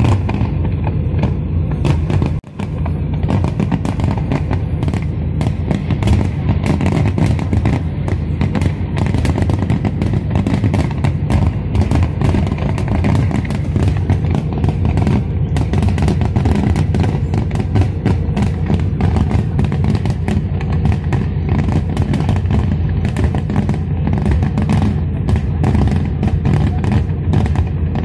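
Fireworks display: a dense, continuous barrage of quick cracks and bursts, with a brief dropout about two and a half seconds in.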